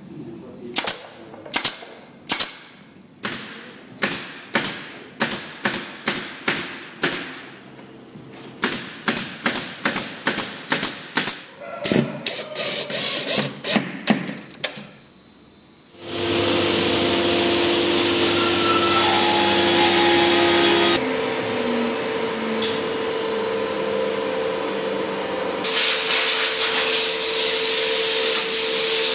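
Pneumatic nailer firing repeatedly into melamine-faced particleboard: a long run of sharp shots that comes faster, several a second by the middle. After a short lull, a loud steady noise with held tones takes over, changing abruptly twice.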